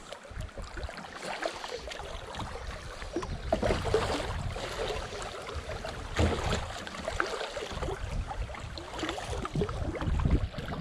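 River water rushing and splashing around a kayak moving through a fast current, with the dip and splash of paddle strokes now and then.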